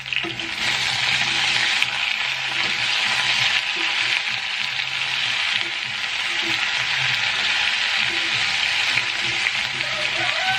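Potatoes cooking in a pot on the stove, a steady sizzling hiss.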